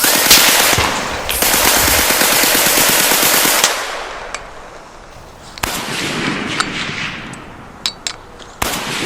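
Gunfire sound effects: dense, rapid automatic machine-gun fire for about the first three and a half seconds, dying away, then scattered single shots about a second apart, some followed by an echoing tail.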